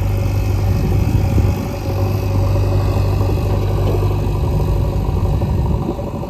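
Heavy diesel engine running steadily with a deep, even hum and some clatter.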